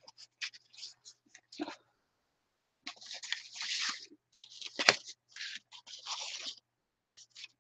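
Sheets of painted paper and thin tissue-like paper rustling and crinkling as they are shuffled through by hand, in uneven bursts with a sharp snap of paper about five seconds in.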